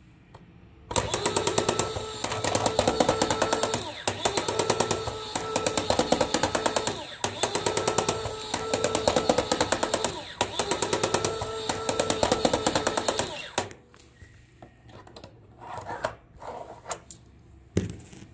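Toy coin bank's small electric motor and plastic gear mechanism rattling rapidly, driven at 8 V from a bench power supply. It runs in four cycles of about three seconds each and stops about 13.5 seconds in, followed by a few light handling knocks and one sharp knock near the end.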